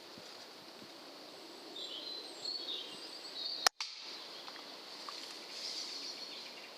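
Songbirds chirping faintly. About three and a half seconds in comes a single sharp crack: a shot from a Weihrauch HW110 .177 pre-charged pneumatic air rifle.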